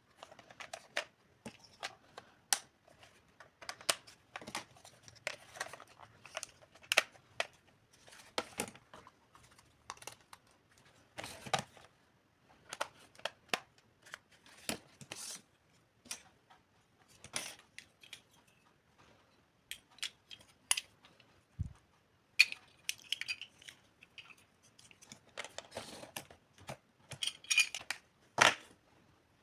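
Small toy kitchen pieces and their packaging being handled: irregular light clicks, taps and crinkling, with one soft low thump about two-thirds of the way through.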